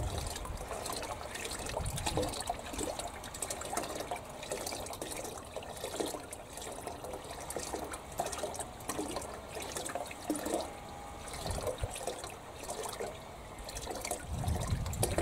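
Water moving in a galvanised metal garden water tank: small irregular trickles and plops over a steady wash, with a few low rumbles near the start and toward the end.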